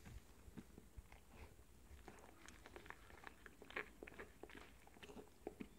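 Faint, irregular wet licking and mouth clicks from a miniature dachshund in labour, licking at her hindquarters.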